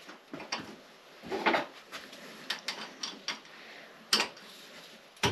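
Socket wrench being worked on a motorcycle spark plug: scattered, irregular metal clicks and clinks, with a sharper click about four seconds in and another at the end.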